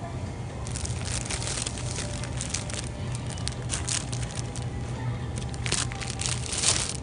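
Crinkling and rustling of handled packaging or a bag, in quick irregular bursts starting about a second in, over a steady low hum.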